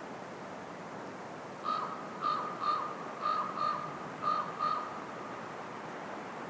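A bird calling: seven short calls in loose pairs over about three seconds, over a steady background hiss.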